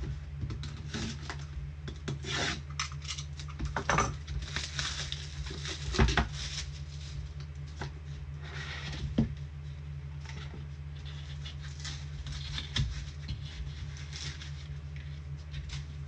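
A box of trading cards being opened and unpacked by hand: irregular rubbing, scraping and rustling of cardboard and wrappers, with a few sharp knocks. A steady low hum runs underneath.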